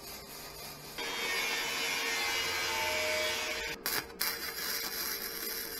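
Electric arc welding on the steel trailer frame: the arc crackles and sizzles steadily. It gets louder about a second in, stops briefly a little before four seconds, then strikes again.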